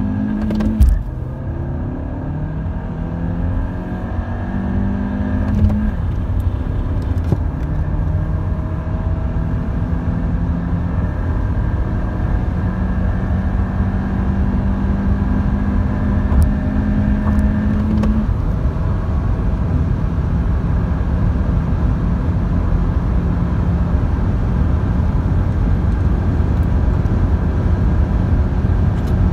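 Seat Leon Mk3's 1.2 TSI turbocharged four-cylinder petrol engine under full-throttle acceleration, heard inside the cabin. Its pitch climbs slowly as the revs rise, with a gear change about a second in and another around eighteen seconds in. Road and wind noise grow louder with speed.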